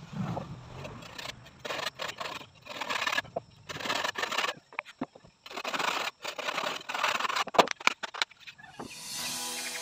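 Handsaw cutting through a wooden board, rasping strokes about one a second with short pauses between, and a few sharp knocks near the end.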